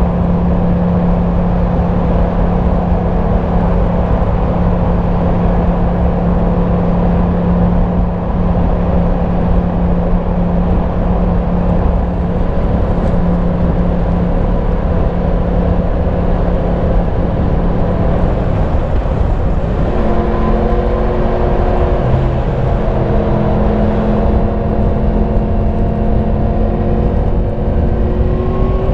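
A Yamaha MT-10 SP's crossplane inline-four engine on the stock exhaust pulls steadily under way, with road and wind noise beneath it. The engine note shifts to a different pitch about two-thirds of the way through.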